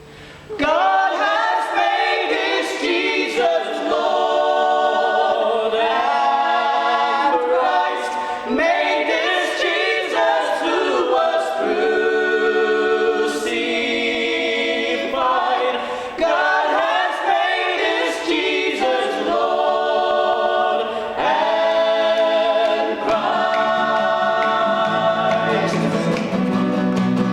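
Unaccompanied choir singing a sacred piece in several parts, starting about half a second in; lower notes join near the end.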